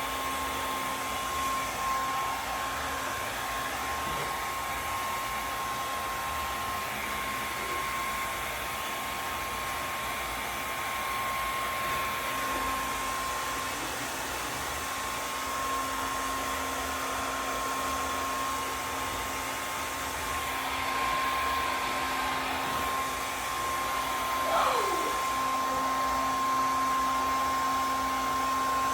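Handheld hair dryer blowing steadily, with a constant whine over the rush of air, aimed at an inflatable's frozen blower motor to thaw it. A brief falling whistle sounds about three-quarters of the way through.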